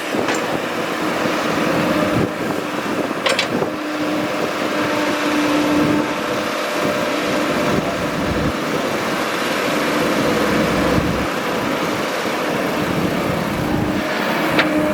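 Excavator's diesel engine running steadily with a held, slightly wavering tone, and three short sharp knocks: one right at the start, one about three seconds in and one near the end.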